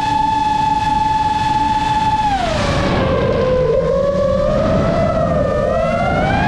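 iFlight Chimera7 Pro quadcopter's motors whining at a steady pitch over a rushing noise. About two and a half seconds in the pitch drops as the throttle comes off, wavers low, then rises again near the end as it is throttled back up.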